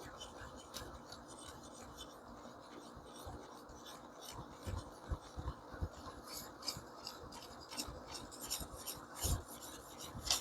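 Faint rasping strokes of a 600-grit sharpening stone on a fixed-angle sharpener drawn across a small cleaver's steel edge, the strokes coming quicker and more often in the second half.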